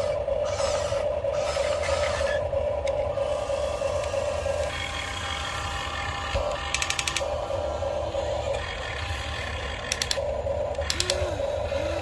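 Motors and gears of a Huina radio-controlled excavator whining steadily as it drives its tracks and works its arm. The whine drops out and cuts in again twice, with a few short rapid clicking rattles from the gear mechanism.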